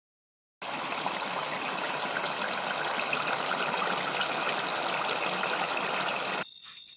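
Duck curry boiling hard in a pot, a dense bubbling and crackling that starts about half a second in and cuts off suddenly near the end.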